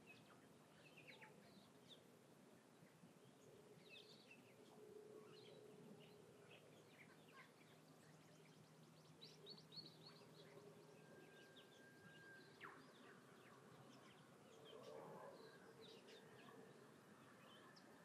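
Faint wild birdsong: scattered short chirps and whistles from several birds, with one longer held whistle about two-thirds of the way through. A faint low steady drone runs underneath.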